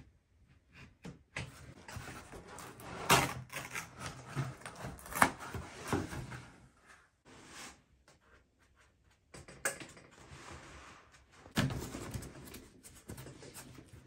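Utility knife blade cutting through foam deck matting: irregular rasping scrapes with a few sharp knocks, pausing for a couple of seconds about halfway before the cutting resumes.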